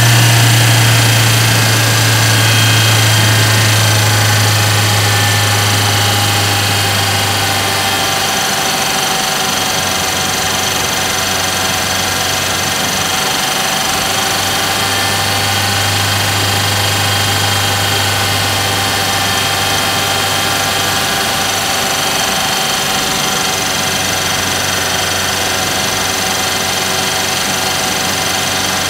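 2022 Mercedes-AMG GLA 45's turbocharged four-cylinder engine running while driving, heard from inside the cabin with road noise. It is louder for the first several seconds, then settles to a steady cruise.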